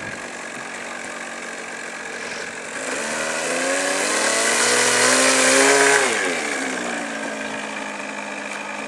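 Small RC airplane engine running steadily, then swelling louder and rising in pitch about three seconds in before its pitch drops sharply and it fades, as in a run-up or a pass by.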